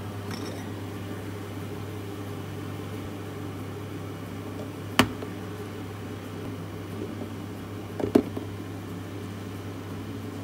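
Microwave oven running with a steady hum. Two sharp clicks, about five and eight seconds in, are the loudest sounds.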